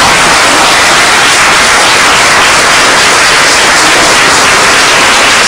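Audience applauding, a loud, steady, dense clapping with no break.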